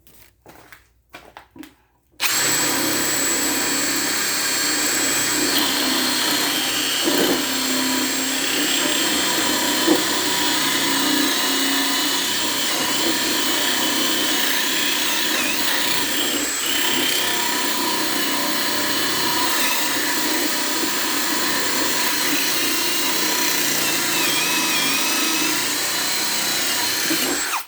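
Ryobi One+ HP hammer drill, on a 6 Ah battery, boring a 1-1/4-inch spade bit into wood. The motor whines steadily under load from about two seconds in, then cuts off suddenly just before the end. A few faint handling clicks come before it starts.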